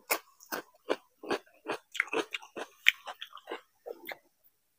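Close-miked chewing of a mouthful of food, with wet lip-smacking clicks about three or four times a second, stopping about four seconds in.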